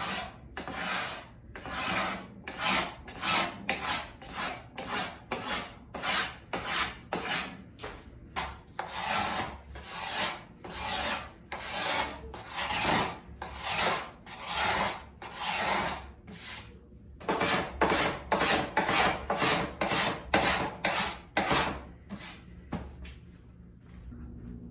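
Hand tool working a pine board in quick, even rasping strokes, nearly two a second, with a brief pause around the middle; the strokes thin out and stop near the end.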